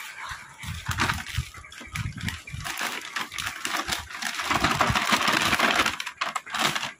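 Dry rustling and crinkling of packets of spice seeds such as cumin being handled, with soft knocks underneath. It is loudest past the middle and stops abruptly near the end.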